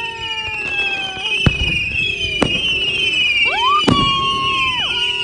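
Fireworks going off: three sharp bangs of bursting shells, amid high whistles that glide up and down.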